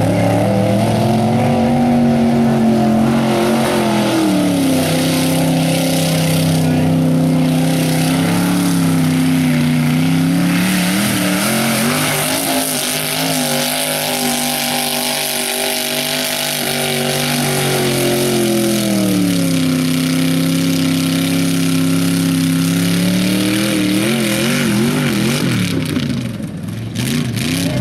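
Mega truck engine running hard at high revs through a mud-hole race run, its pitch dropping and climbing again twice as the throttle and load change, and wavering near the end.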